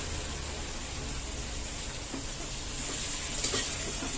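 Bitter gourd and onions sizzling steadily in oil in a steel kadai, with a few light scrapes of the spatula against the pan near the end.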